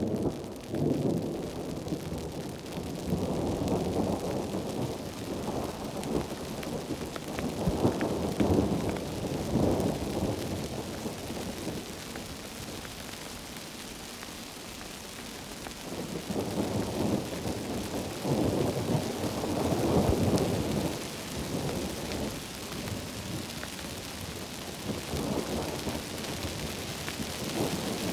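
Heavy rain hissing steadily, with long rolls of thunder rumbling in waves over it: one across the first third, another past the middle, and a shorter one near the end.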